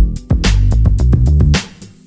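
Background instrumental music with a steady drum beat and bass line, which drops out briefly near the end.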